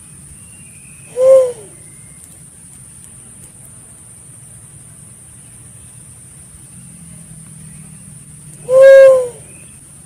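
Pink-headed fruit dove (walik kepala ungu) cooing: two single low hoots, a short one about a second in and a longer one near the end, each rising slightly and falling away at the end, over a steady faint hiss.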